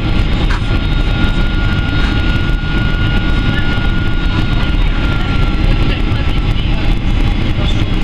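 Boeing 767-300ER in flight, heard from inside the cabin: a steady, loud roar of jet engines and airflow, heaviest in the low end, with a faint high whine running through it.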